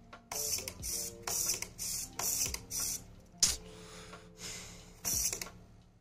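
Micro servo on a wall light switch buzzing in short bursts, about two a second, as its arm moves to flip the switch back off. A longer, fainter whir and one more burst come in the second half, over faint background music.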